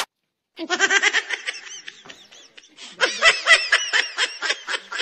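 People laughing in quick, high-pitched pulses, starting about half a second in and growing louder about three seconds in.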